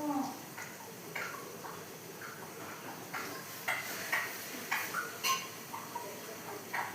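Parrot making a brief call, then a string of short, sharp clicks and chirps at irregular intervals.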